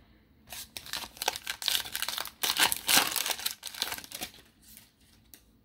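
A shiny foil trading-card pack (Panini Phoenix football) being torn open and its wrapper crinkled in the hand: a dense run of crackles starting about half a second in and dying away after about four seconds.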